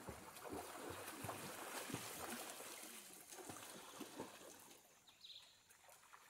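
Faint splashing and sloshing of water from people bathing in a swimming pool, busier in the first few seconds and dying down after about four and a half seconds, with a short high chirp about five seconds in.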